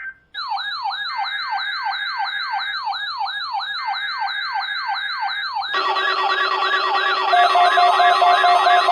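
Electronic alarm siren: pitch sweeps repeating about three times a second, each rising sharply then falling. About six seconds in, more steady tones are layered on and the sound gets louder, with a fast-pulsing lower tone joining near the end.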